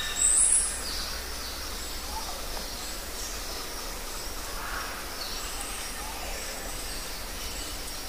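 Rainforest ambience: birds and other animals calling over a steady background hiss, with one loud, high, brief call near the start and scattered fainter chirps and whistles after it.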